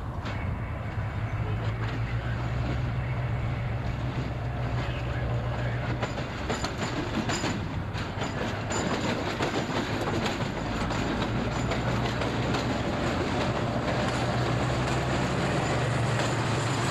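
Diesel end-cab switcher locomotive running with a steady low engine drone as it approaches and passes. Its boxcars follow, rolling past close by, and the rolling noise gets louder through the second half.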